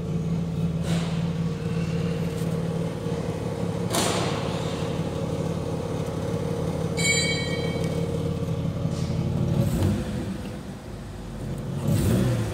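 Holden Commodore's 3.8-litre V6 idling steadily at about 1,000 rpm, heard from inside the car's cabin, with a few light knocks. Near the end the engine starts to rev up.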